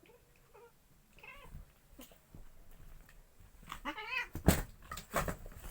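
Domestic cats yowling in a fight: wavering calls that rise and fall in pitch, a louder warbling yowl about four seconds in, then a couple of sudden sharp noises near the end.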